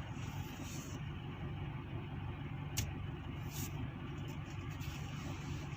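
A moving car's engine hum and road noise, steady throughout, with a single sharp click about halfway through.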